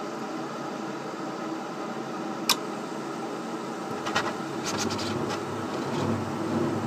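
Furnace running with a steady fan hum, a single sharp click about two and a half seconds in, then a run of clicks and a deeper rumble coming in about four seconds in as the burner lights.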